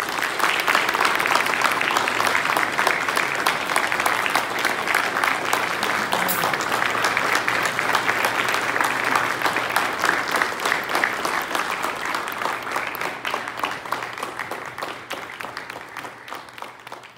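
Audience applauding, a dense steady patter of many hands clapping that thins out and fades over the last few seconds.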